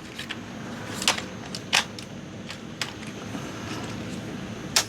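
Hands handling the plastic body and parts of an RC crawler, giving a few sharp plastic clicks and taps over a low steady background noise. The loudest click comes near the end.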